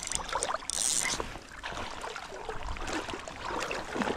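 A spinning reel being cranked in short spells near the start as line is reeled in against a hooked, fighting steelhead, with river water lapping and trickling throughout.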